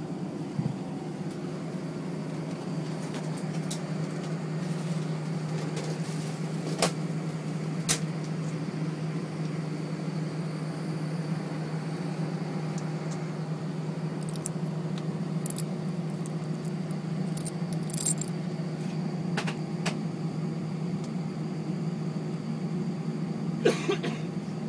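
Steady airliner cabin hum, with the metal tags on a dog's collar jingling and clinking now and then, a short cluster of clinks near the end as the tags are handled.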